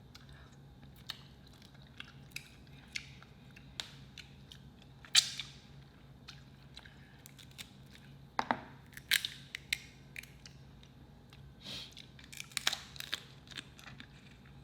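A person eating seafood boil close to the microphone: scattered wet chewing and mouth clicks, with a few louder, sharper clicks about five seconds in, around eight to nine seconds, and again a little before the end.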